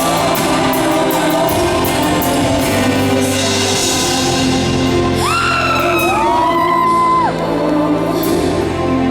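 Live ballad in a large hall: a female singer over sustained, slowly changing accompaniment chords. About five seconds in, a high voice slides up and holds a long note, then drops away.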